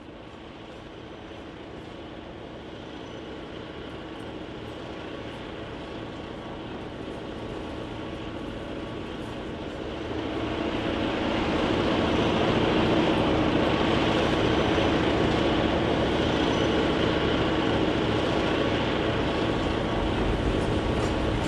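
HO scale model freight train behind Santa Fe diesel locomotives running on the track, its rumble growing steadily louder as it approaches and loudest from about ten seconds in as the engines and tank cars pass close by.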